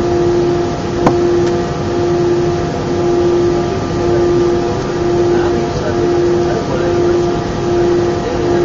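Airbus A319 cabin noise in flight: a steady jet-engine drone whose hum swells and fades in a regular slow beat, over a constant rush of air. A single sharp click sounds about a second in.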